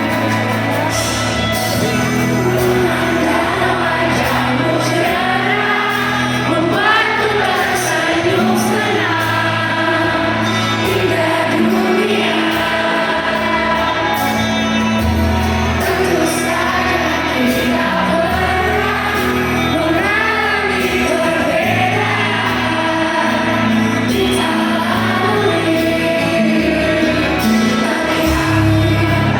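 Pop band playing a song with a female lead vocal over a steady bass line and chords.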